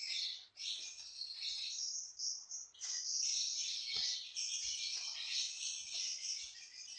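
Dense, continuous high-pitched chirring of crickets, with a few brief dips.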